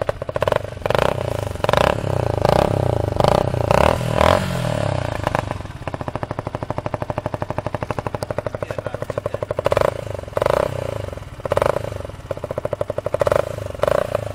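Yamaha YZF-R125's single-cylinder four-stroke engine blipped repeatedly through its stock exhaust, which has been altered for a louder sound. The revs fall back to an evenly pulsing idle about five seconds in, and a second series of blips starts about ten seconds in.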